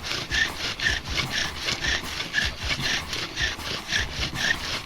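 Bow drill being worked: the wooden spindle rasps and squeaks against the hearth board with each back-and-forth stroke of the bow, about two strokes a second. The friction is already making smoke and a pile of hot wood dust, building toward an ember.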